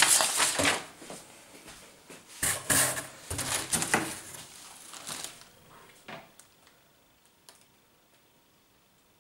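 Paper and cardboard being handled while a parcel is unpacked: rustling and light knocks in a couple of short bursts, in the first second and again from about two and a half to four seconds in, then a few faint clicks.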